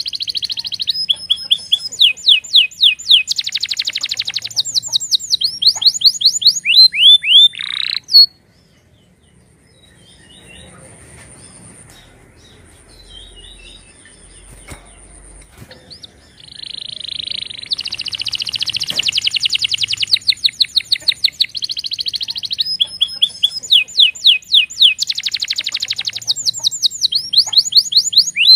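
Domestic canary singing: fast trills and runs of rapidly repeated notes in long phrases. The song breaks off about eight seconds in, leaving several seconds of much quieter sound, then starts again.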